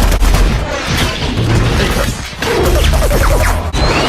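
Battle sound effects in a film mix: heavy explosion booms near the start and again about three seconds in, with gunfire and crashing debris between them.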